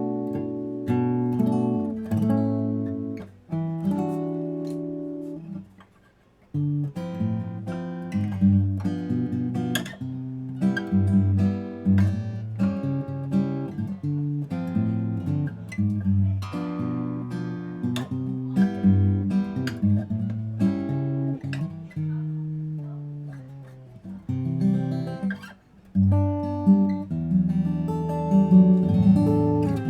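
Guild JF-30 jumbo flattop acoustic guitar being played, mixing picked notes and strummed chords. The playing breaks off briefly twice, about six seconds in and again about twenty-five seconds in.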